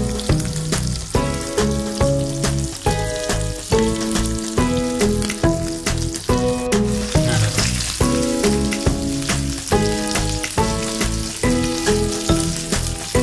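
Stuffed okra frying in hot oil in a non-stick pan, a steady sizzle and crackle, over background music with a melody and a steady beat.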